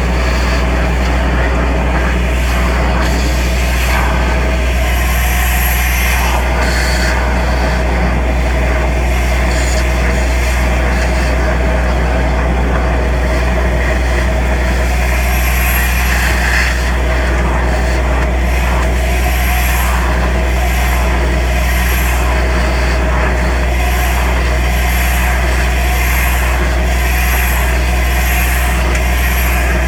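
Compact soil-vacuum excavation machine running steadily, a constant low engine and pump drone. Over it is the hiss of a compressed-air lance blasting the soil loose around a tree's roots.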